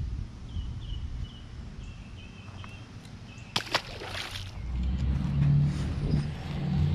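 A largemouth bass released back into a pond hits the water with a splash about three and a half seconds in, followed by a brief slosh. Small birds chirp in the first couple of seconds, and a low rumble comes up near the end.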